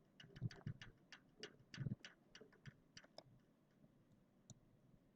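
Faint, irregular clicking: a quick run of about three or four clicks a second for the first three seconds, then a few scattered clicks.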